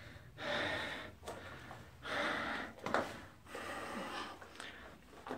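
A person breathing hard, with a hissing breath about every second and a half.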